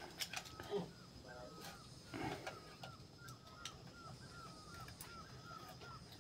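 A bird chirping over and over, short high chirps about three a second, faint, with a few light knocks and a rustle of handling about two seconds in.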